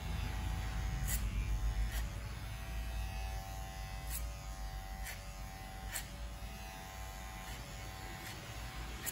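Electric hair clipper running with a steady buzz as it cuts hair over a comb, a clipper-over-comb fade, with a few sharp clicks scattered about a second apart.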